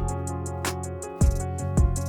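Background music with a steady beat: kick drum, hi-hat and guitar.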